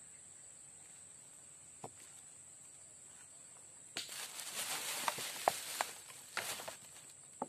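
A steady, high-pitched insect drone runs throughout. About four seconds in come a few seconds of rustling with sharp clicks, from close handling movement by the water, then it settles again.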